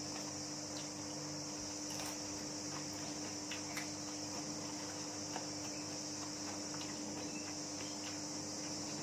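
Steady, high-pitched chirring of crickets or similar insects, with a low steady hum underneath and a few faint clicks.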